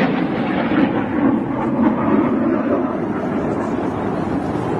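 Jet roar from Blue Angels F/A-18 Hornets flying past, a deep rumbling noise that eases a little in the second half.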